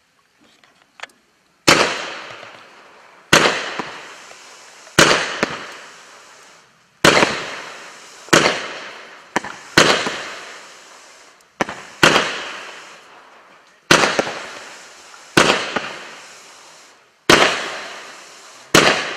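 Low-noise firework cake firing fish-and-peony shots one after another, about a dozen in all, roughly one every second and a half. Each sharp report is followed by a hissing, fizzing tail that dies away before the next.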